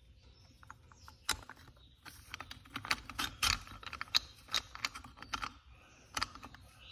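Light metal clicks and taps from the steel parts of a pulley puller being fitted by hand onto a power steering pump's shaft. They are irregular: one about a second in, then a scattered run through the middle few seconds.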